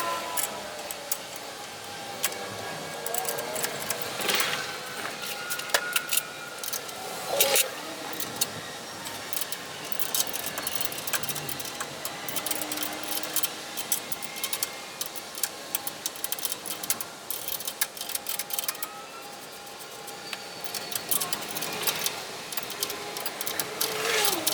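Hand tools and metal parts clinking and clicking irregularly while the Model T's front spring shackles are worked on, with a few short squeaks.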